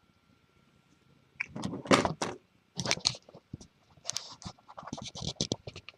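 Irregular scraping and clicking of things being handled, starting about a second and a half in, with a busier run of clicks near the end.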